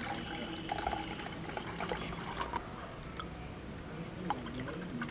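Palm toddy poured through a plastic tea strainer into a steel tumbler, the liquid splashing and trickling into the cup, with a few light clicks.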